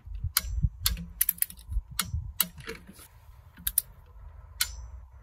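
Irregular metallic clicks of a ratchet and socket extension as the turbocharger bracket bolts are tightened toward 16 Nm.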